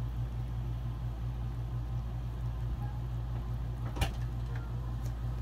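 A steady low hum, with a single sharp click about four seconds in.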